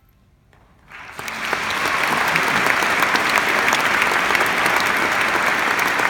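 Concert audience applauding: after about a second of hush, clapping breaks out and quickly swells into steady, full applause.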